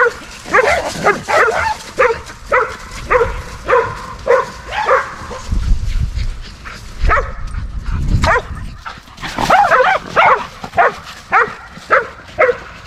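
A dog barking over and over in short, sharp barks, about two a second, with a brief pause near the middle, as the dogs play chase.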